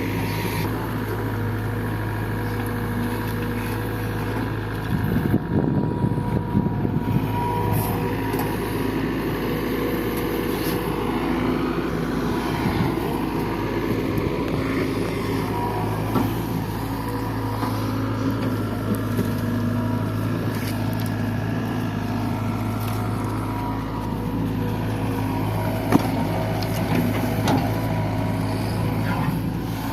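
Diesel engine of a JCB 3DX backhoe loader running steadily at work, with a louder, rougher stretch about five to seven seconds in and a single sharp knock near the end.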